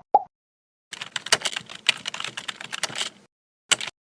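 A rapid, irregular run of small clicks and taps lasting about two seconds, like keys being pressed, then a short burst of clicks near the end.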